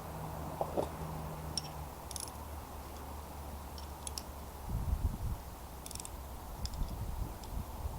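Scattered light metallic clicks and clinks of a spanner on the loppers' pivot nut and of the lopper blades being handled while the nut's tension is adjusted, with low rumbling handling noise about five seconds in.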